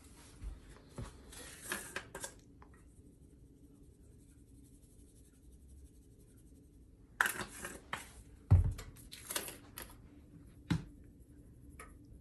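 Spice jars being handled: a few light clicks, then a cluster of rattling and shaking as seasoning is shaken from opened jars over fish fillets, with one sharp knock about two-thirds of the way through.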